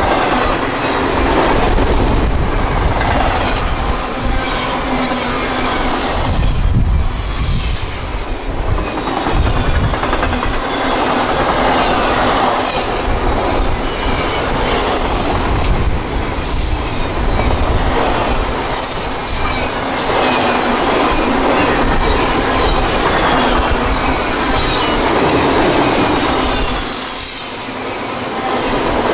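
CSX double-stack intermodal freight train passing close by at speed: steady rumble of steel wheels on rail, with clicking over rail joints and faint high flange squeal. The loudness dips briefly near the end.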